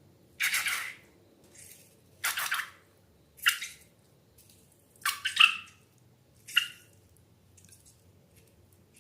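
Slime making short wet squelches and plops, about six separate bursts, some with a brief squeaky edge.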